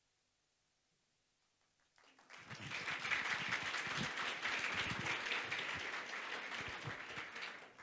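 A small audience applauding. It starts about two seconds in, after near silence, lasts about five seconds and dies away near the end.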